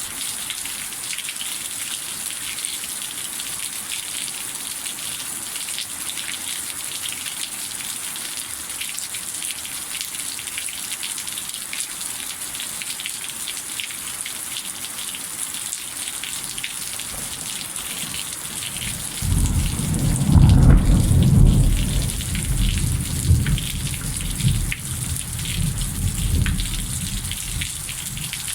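Steady heavy rain, a continuous hiss with many drop ticks. About two-thirds of the way through, a loud low rumble of thunder comes in, peaks, then rolls on and fades over several seconds.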